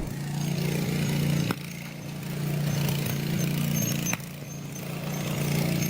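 An engine running steadily with a low hum. Its level swells and falls, with sudden drops about a second and a half in and again about four seconds in.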